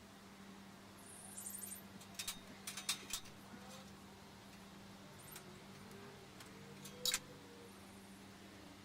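Faint, quiet handling noises over a steady low hum: a brief high squeak about a second and a half in, a quick run of light clicks and taps just after, and one sharper click near the end.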